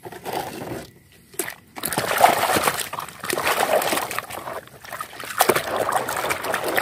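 A hand sloshing and splashing vigorously through muddy water in a plastic basin, washing mud off toys. A few softer wet handling sounds come first, then after a short lull continuous sloshing starts about a second and a half in.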